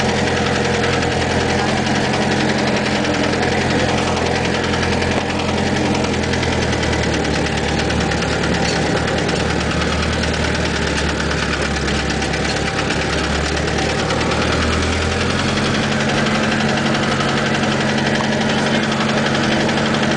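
Engine of a Mercedes-star-badged off-road vehicle running steadily as it drives over sand, heard from inside the cab. The engine note shifts about seven seconds in and again about fifteen seconds in.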